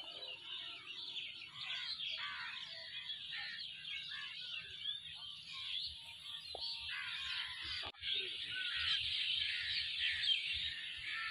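Dense chorus of many birds chirping and calling at once, a busy overlapping chatter. It breaks off for an instant about eight seconds in and resumes slightly louder.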